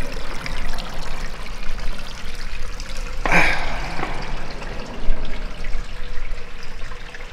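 Shallow water trickling and splashing over the concrete lip of a drainage culvert, a steady running-water noise, with one short louder burst about three seconds in.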